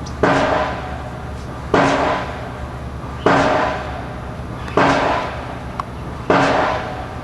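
Pile-driving hammer striking a pile, five heavy blows about one and a half seconds apart, each ringing on and fading before the next, over a steady low hum.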